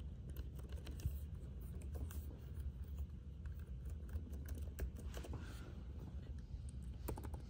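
Light, quiet taps of fingers pressing keys on an Acer Nitro 5 laptop keyboard, scattered and irregular, soft presses with no clicks.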